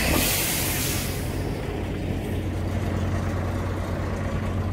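Heavy logging truck's engine running steadily, its low hum growing a little stronger about two seconds in, with a hiss at the very start.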